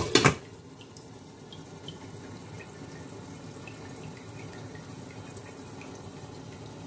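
Glass lid set onto a steel cooking pot with a couple of quick clinks, then tomato stew simmering under the lid: a steady bubbling hiss with scattered small pops.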